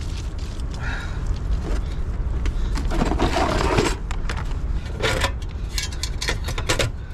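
Camping cook gear being unpacked and handled: metallic rattles and clinks, with a longer scraping rustle about three seconds in.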